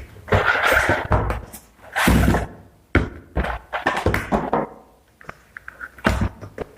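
Irregular thunks, knocks and rustling of objects being handled and set down on a hard surface, with the loudest thump about two seconds in.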